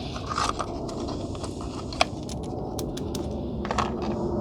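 Small plastic clicks and light rattles of a PCV valve and its packaging being handled, with one sharper click about two seconds in, over a steady low background noise.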